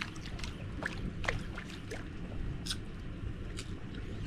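Water lapping and plinking against a drifting boat's hull, with short irregular splashes over a steady low rumble.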